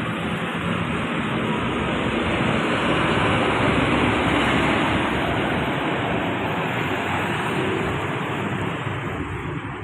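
A bus drives past, its engine and tyre noise swelling to a peak about four seconds in, then fading away.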